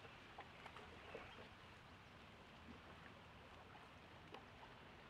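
Near silence: faint lapping of water against a boat hull, with a few soft ticks.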